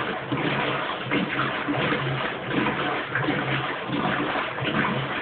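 Kenmore Oasis top-load washing machine agitating: water sloshing in the tub with a low pulse from the drive repeating in a regular rhythm, under two strokes a second.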